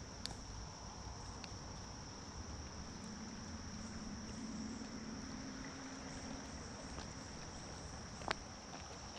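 Steady high-pitched chorus of insects over the even hiss of fast-moving creek water, with a few sharp ticks, the loudest one a little before the end.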